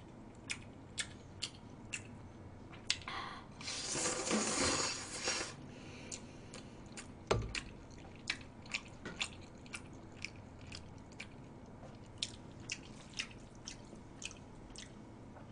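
Close-up eating sounds of chewing stir-fried instant noodles: wet mouth clicks and smacks every half second or so, with a longer slurp-like rush of noise about four seconds in and a single knock a little after seven seconds.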